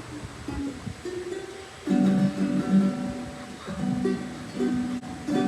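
Ukulele being played: a few quiet plucked notes, then louder strummed chords from about two seconds in.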